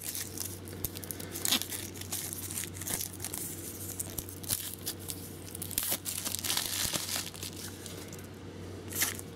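Thin plastic shrink wrap on a stack of game cards crinkling and tearing as fingers pick at it and pull it off, in irregular crackles throughout.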